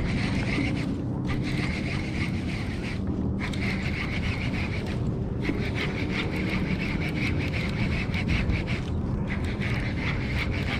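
Conventional fishing reel being cranked in several spells, its gears whirring and ticking with short pauses between spells, over steady wind noise on the microphone.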